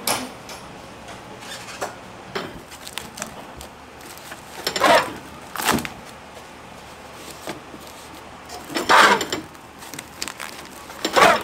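Food-preparation handling noises at a street-food toast stall: about six short scrapes or knocks, each under half a second and the loudest about five and nine seconds in, over a steady background hiss.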